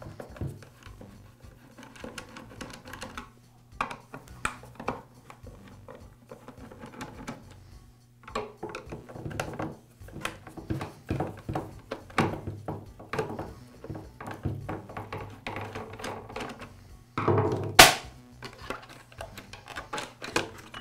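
A screwdriver loosening the screws of a chainsaw's plastic top cover, with many small clicks and taps of metal tool on plastic. One loud sharp knock comes about three seconds before the end.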